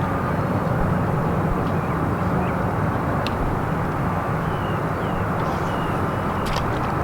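Outboard motor of a bass boat running steadily under way: a continuous low drone with a few faint chirps above it.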